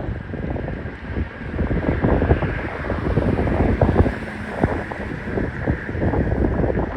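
Wind buffeting the camera's microphone: an irregular, gusty low rumble that never lets up.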